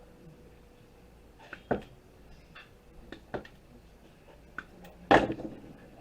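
Scattered knocks and clatter of computer parts and wires being handled and tossed onto sorting piles, a few separate strikes with the loudest near the end.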